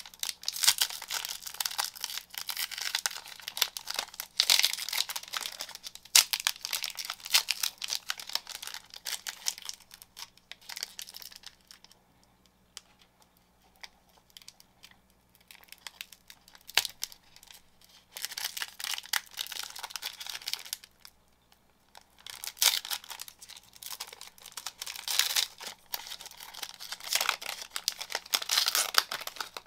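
A 2021 Topps MLS trading card pack's wrapper crinkling and tearing as it is handled and opened, in stretches of crackling with a much quieter spell about a third of the way through and a brief pause about two thirds in.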